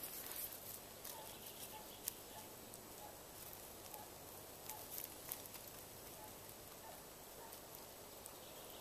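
Faint crackling of small twigs burning on top of a Swedish log stove, with scattered sharp pops and snaps, thickest in the first five seconds.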